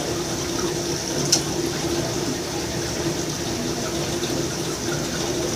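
Aquarium water running in the background: a steady trickle of water with a low, even hum, most likely from tank filtration. A single light click comes about a second in.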